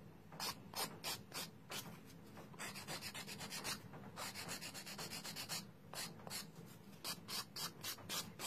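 Hand nail file rasping back and forth over a hardened acrylgel nail in a series of short strokes, with a quicker run of strokes in the middle: shaping and finishing the nail.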